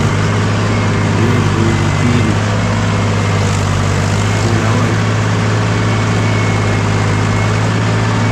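Farm tractor's diesel engine running steadily while the tractor drives along, a constant low drone.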